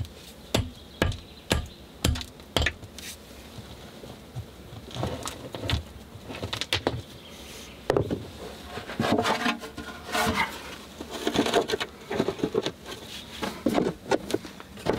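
Work on a plank floor over a dirt and stone cave floor: scattered knocks of wooden boards and scraping and rustling of soil and small stones under gloved hands, busiest in the second half.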